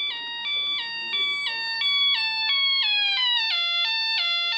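Electronic siren tone from a freshly assembled Elenco Learn to Solder kit, powered by its battery. It alternates between a high and a low beep about three times a second, and in the second half the pitch steps lower. Swapping the R4 and R6 parts has made only a small difference to it.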